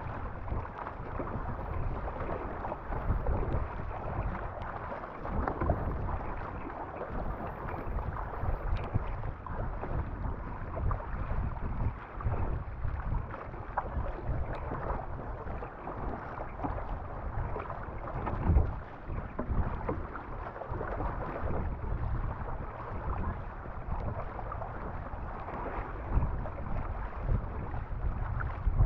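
A MAZU Pro Elite surfski moving at racing pace through choppy sea, water rushing and slapping along the hull in uneven surges, with wind buffeting the microphone.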